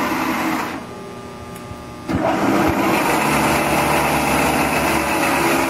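Spindle motor of a MaxiMart 9×42 knee milling machine (a Bridgeport-type mill) running, then switched off and dying away just under a second in. It starts again abruptly about two seconds in and runs steadily with a steady hum.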